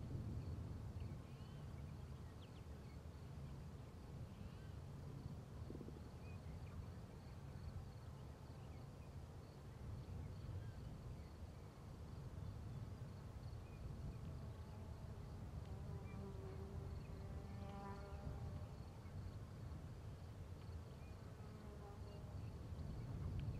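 Quiet outdoor ambience with a steady low rumble; a buzzing insect passes near the microphone in the second half, its buzz wavering, over a faint steady high-pitched insect trill.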